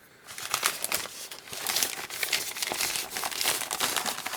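Parcel wrapping being pulled apart by hand, crinkling continuously with small tearing sounds, starting about a quarter second in.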